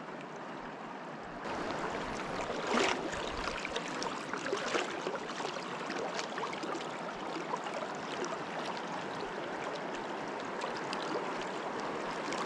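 River water rushing steadily, a rushing wash that grows louder about a second and a half in, with scattered small splashes and ticks over it.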